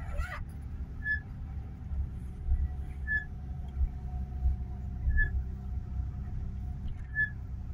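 Car driving, heard from inside the cabin: a steady low engine and road rumble. A short high chirp repeats about every two seconds.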